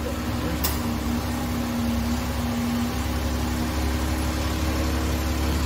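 Car engine idling steadily close by, with one sharp click under a second in.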